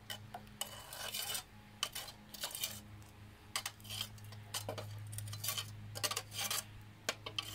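Steel rod scraping and knocking inside a steel melting crucible, irregular metallic clinks and scrapes as leftover zinc residue is worked loose into a steel muffin tin. A steady low hum runs underneath.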